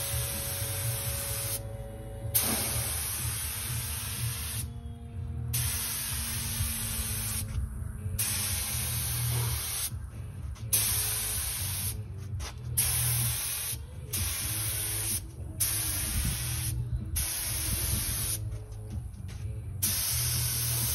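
Compressed-air paint spray gun spraying epoxy primer in short passes. The hiss starts and stops abruptly as the trigger is pulled and released, about a dozen times, over a steady low hum.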